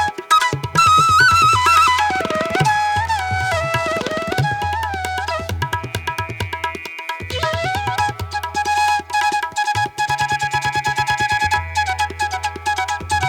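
Background music: a wavering melody over fast, steady hand-drum beats.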